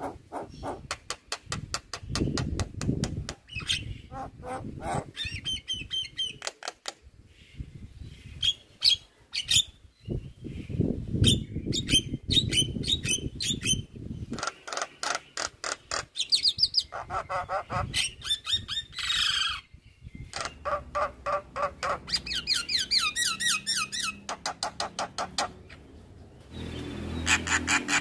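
Javan myna singing a long, varied song: rapid trains of clicking chatter, harsh squawks and short rising whistled notes, with brief pauses between phrases.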